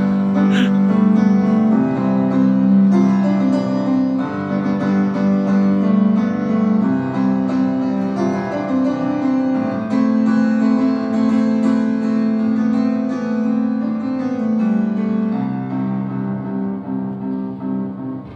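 Piano-like keyboard playing an instrumental passage of held chords that change every second or so, amplified through a live PA with no singing.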